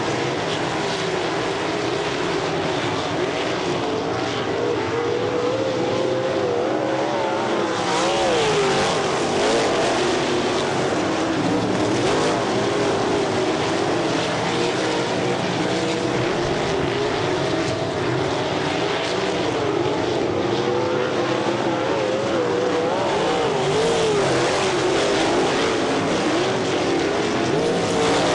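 Several sprint car engines running hard around a dirt track, their pitch rising and falling as they lift into the turns and accelerate out. The sound swells as the pack passes about eight seconds in and again near the end.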